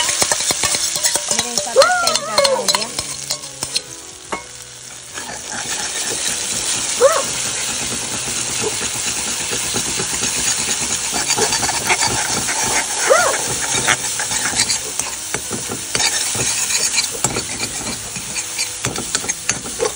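Oil sizzling in a kadhai (Indian wok) as food fries, with a spoon stirring and scraping against the pan in sharp clicks. The sizzle dips for about a second near the fifth second, then carries on.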